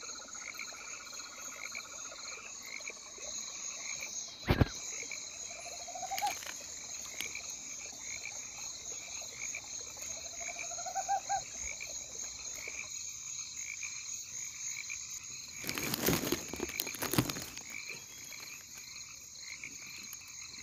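Night chorus of rainforest frogs and insects: steady, rapidly pulsing high trills underneath, with a few short rising pulsed frog calls, about six and ten seconds in. A sharp knock about four seconds in and a couple of rustling bursts near the end.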